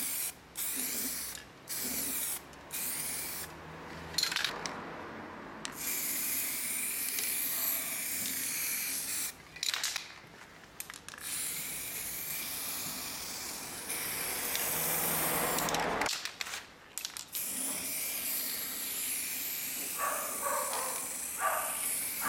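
Aerosol spray can of MOTIP primer hissing as a coat is sprayed over a steel wheel: a few short bursts at first, then long continuous passes with brief pauses between them.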